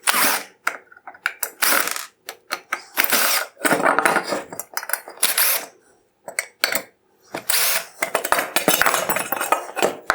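Phillips screws being removed from a plastic headlight projector bracket, with the parts handled: an irregular run of clicks, scrapes and short rattling clatters with brief pauses.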